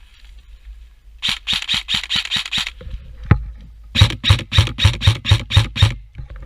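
Airsoft rifle fire: a quick string of about ten shots about a second in, a single shot, then a slower, louder string of about eight shots, each with a low thump.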